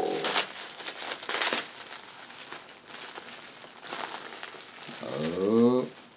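Parcel packaging crinkling and rustling as it is handled and pulled open, with a short rising vocal sound near the end.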